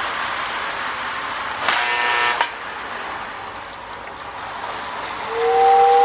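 Marx toy train with a 333 motor running steadily on its track. A short buzzy horn blast sounds about two seconds in, and a steady two-note whistle starts near the end.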